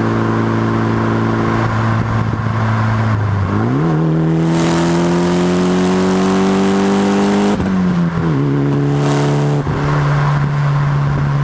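Mitsubishi Lancer Evolution X's turbocharged four-cylinder engine through an aftermarket Lite Spec titanium exhaust. It runs steadily, then accelerates a few seconds in, its pitch climbing with a rising hiss. Past the middle the pitch drops sharply, as in a gear change, and the engine then pulls on at a steady pitch.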